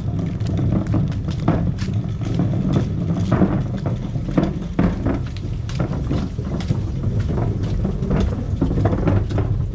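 Rain falling, with irregular drip clicks close to the microphone, several a second, over a steady low rumble.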